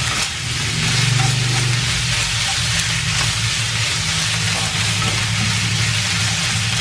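Sliced sour bamboo shoots sizzling as they are stir-fried in a frying pan and turned with wooden chopsticks, over a steady low hum.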